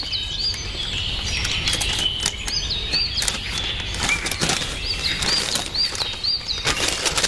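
Small birds chirping in short, hooked notes that repeat in quick clusters, over a steady outdoor background hum. Sharp crackles and rustles of a stiff sheet of paper being unfolded run alongside them, thickest in the second half.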